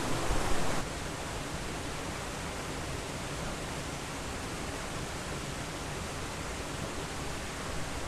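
Small waterfall's steady rush of falling water, an even hiss without any rhythm, a little louder for about the first second and then level.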